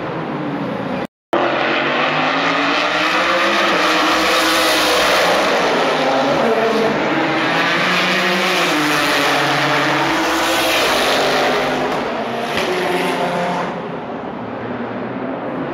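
IMSA sports-prototype and GT race car engines at speed on a street circuit, their note rising and falling as the cars accelerate, brake and pass.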